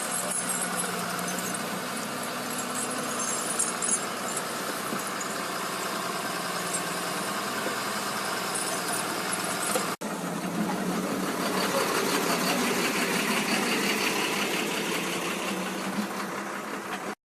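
An engine running steadily, with an abrupt break about ten seconds in where one shot cuts to the next.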